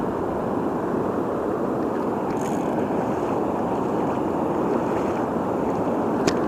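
Steady rush of a river's current over shallow rocky riffles, with a single sharp click near the end.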